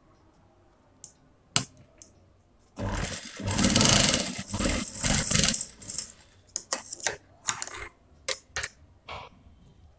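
Industrial lockstitch sewing machine stitching down pleats in cloth: one run of about three seconds near the start, then several short starts and stops with clicks.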